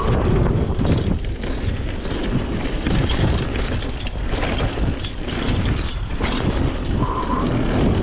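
Downhill mountain bike rattling and knocking over a rough dirt trail, with heavy wind buffeting the action camera's microphone as a steady low rumble. A brief squeak about seven seconds in.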